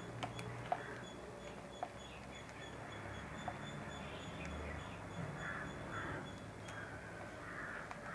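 Faint handling of plastic craft wire being knotted and tucked by hand, with a few sharp ticks in the first two seconds and another about halfway through.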